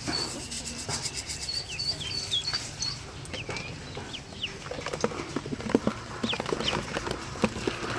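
Ducklings peeping in short high cheeps, some level and some falling in pitch, over a run of small clicks and taps.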